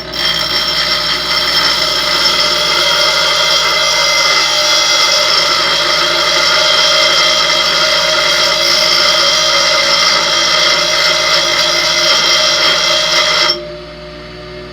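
Handheld power tool cutting a stuck bolt head down into a flat tab, running with a steady high-pitched whine, then stopping abruptly about 13 seconds in.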